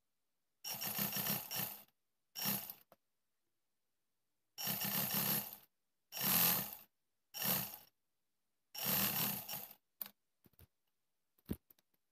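Black domestic-style sewing machine stitching fast in six short runs, each lasting about half a second to just over a second; a few light clicks follow near the end.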